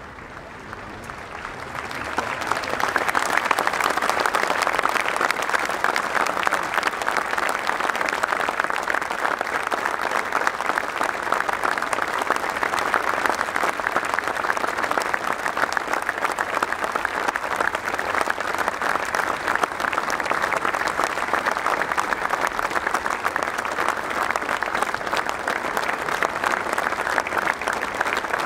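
A large stadium crowd applauding, swelling over the first two seconds into sustained, steady clapping.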